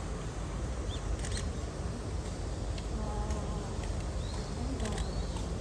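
Outdoor crowd ambience: a steady low rumble with faint background voices, a couple of sharp clicks, and small chirping bird calls near the end.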